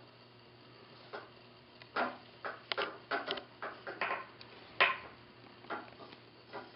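Cord rubbing and clicking on a bar as a doubled-cord gripping hitch is tightened a little at a time: about a dozen short, irregular scrapes and clicks, starting about a second in.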